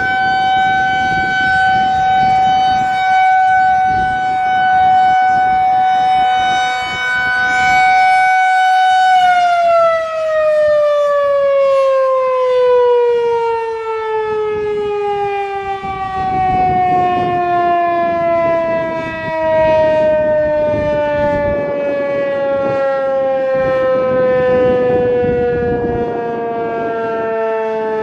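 Federal Signal 2001-130 electromechanical warning siren sounding its steady single-tone test signal, its loudness swelling and dipping as it rotates. About nine seconds in the power cuts and it winds down, the pitch sliding steadily lower.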